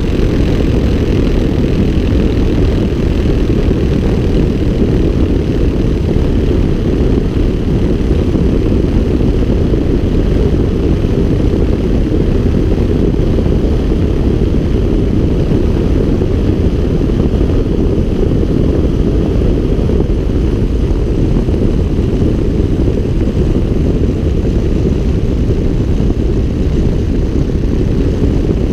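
Light aircraft flying low: a steady, loud rush of wind on an outside-mounted microphone blends with the engine and propeller, unchanging throughout.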